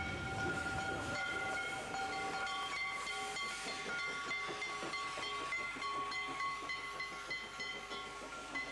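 Steam locomotive whistles held as long steady chords over the hiss of steam from passing steam locomotives; a low rumble stops about a second in.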